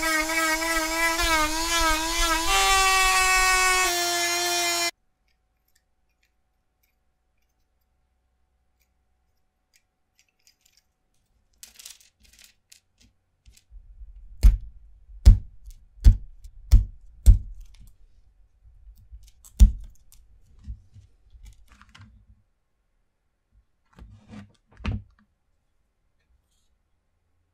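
Hand-held rotary tool with a sanding drum running at speed against a popsicle stick, its whine wavering a little as the wood is pressed on, cutting off abruptly about five seconds in. After a silence come sharp clicks and faint scraping as a hobby knife cuts into the wooden stick, about a dozen clicks spread over several seconds.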